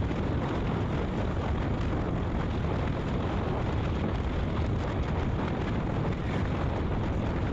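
Wind buffeting the microphone on a moving motorcycle, a steady low rumble mixed with the running of the bike.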